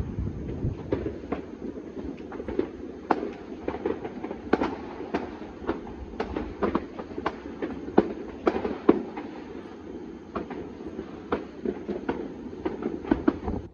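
Many distant New Year's fireworks and firecrackers going off all over a town at once: a dense, irregular crackle of pops and bangs, several a second, over a low rumble, with a louder bang about eight seconds in.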